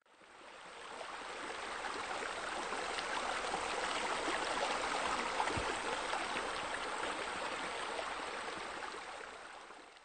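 Water from a pool's raised-wall water feature splashing steadily into the pool, fading in and then out, with a single soft click about halfway through.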